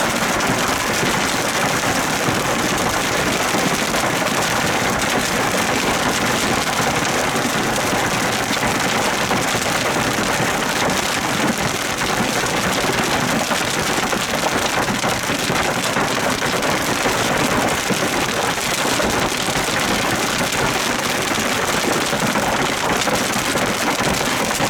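Large hail pouring down in a severe thunderstorm: a loud, steady, dense clatter of countless hailstones striking.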